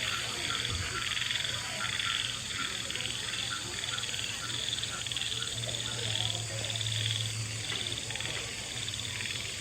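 Frogs calling in a steady, pulsing chorus, over a low steady hum.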